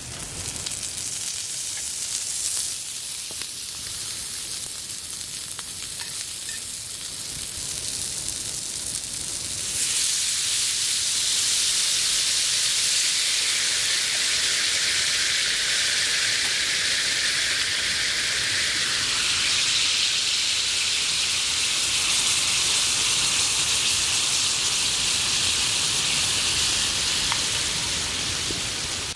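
Hamburger steak patty frying in its own juices on a thick iron griddle over a wood fire: a steady sizzle that turns louder and brighter about ten seconds in.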